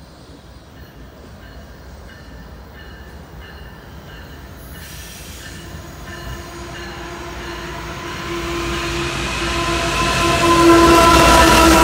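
Union Pacific freight train's lead diesel locomotives approaching and passing. The rumble grows steadily louder, and steady high tones ring over it in the last few seconds as the engines draw alongside.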